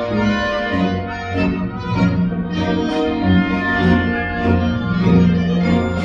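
Live orchestra playing ballet music: sustained, organ-like chords over a steady bass line, with the harmony shifting every second or so.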